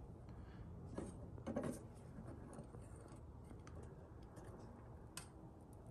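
Faint clicks and clinks of blacksmith tongs on a blade inside an electric heat-treating kiln: a few light clinks about a second in and one sharper click near the end, over a low steady hum.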